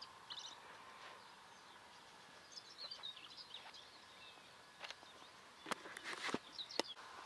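Quiet outdoor ambience with a few faint, short bird chirps scattered through. A handful of sharp clicks come about five to six seconds in.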